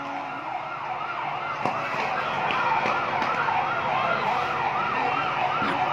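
Fire truck siren in a fast up-and-down yelp, about three cycles a second, growing louder as it approaches.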